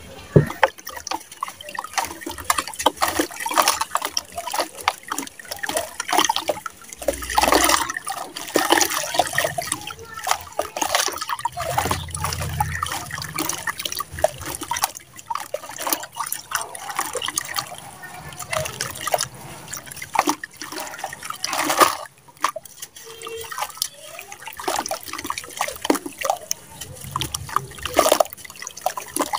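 Wet sand blocks crumbled by hand into a basin of water: gritty crunching and crackling as the lumps break, with sand and water splashing, trickling and dripping back into the basin.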